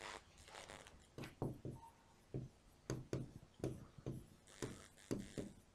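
Felt-tip marker writing on a whiteboard: a string of short, faint strokes, about two a second.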